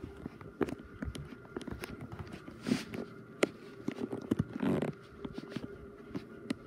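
Footsteps on a hardwood floor, with irregular knocks and clicks of the phone being handled and two short rustles.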